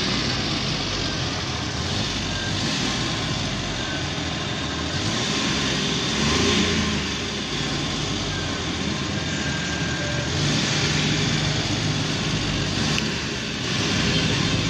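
Suzuki Mehran's small three-cylinder petrol engine running in the parked car, revved up and down with the gas pedal, the revs rising around six seconds in and again after ten seconds.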